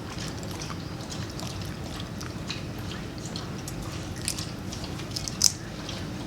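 Boiled peanuts being shelled and eaten: scattered small wet clicks and squishes as the soft shells are cracked open, with one sharper click near the end.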